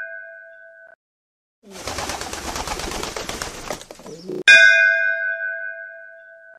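A struck bell rings and fades out within the first second; then a flock of pigeons flutters off for about two seconds, ending in a short coo. The bell is struck again about halfway through and rings down slowly.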